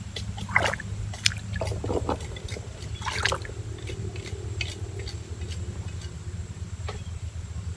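Hands working under shallow, muddy stream water while a crab trap is being set in the streambed: small splashes and sloshing, most of them in the first few seconds, over a steady low rumble.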